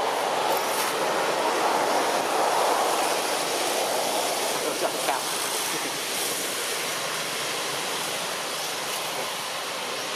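Steady rushing noise that swells over the first few seconds, then eases off and holds at a lower level.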